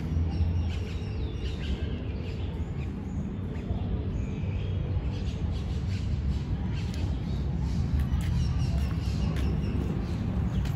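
Outdoor ambience: scattered faint bird chirps over a steady low rumble.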